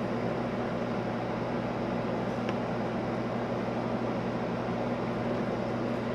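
Steady low mechanical hum with a constant low tone, with one faint click about two and a half seconds in.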